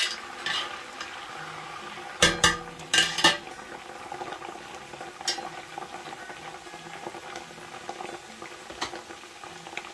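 Onions and iru frying in a large stew pot with a steady sizzle. A spoon knocks against the pot several times in the first half of the clip as the pot is stirred.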